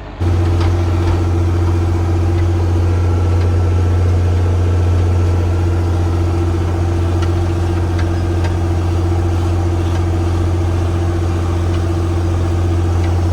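John Deere 4640's six-cylinder diesel engine running at a steady speed, a loud low drone as the tractor pulls an 8-row do-all field cultivator, with a few faint rattles.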